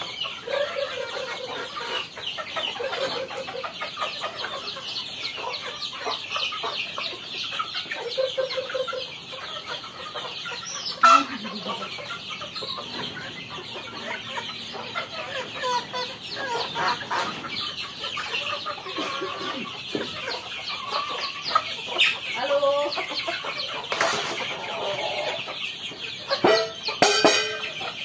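A flock of native chickens at feed: many young birds peeping continuously, with short clucks from the older birds. There is one sharp loud noise partway through, and a flurry of wing flaps near the end.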